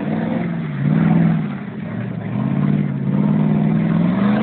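Pickup truck engine revving hard, the revs rising and falling several times, with the wheels spinning in deep mud.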